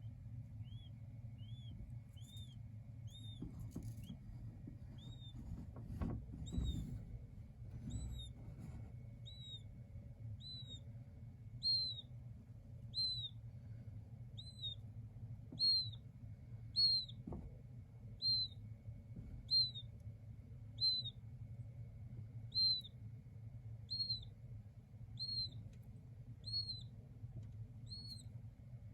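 King quail chick peeping: a long, even series of short, high, arched peeps, about three every two seconds, over a steady low hum. A few soft knocks around six seconds in.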